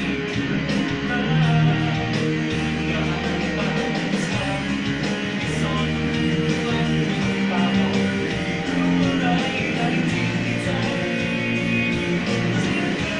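Electric guitar playing a rock song, strummed chords and held notes changing every second or two, picked up by a smartphone's built-in microphone.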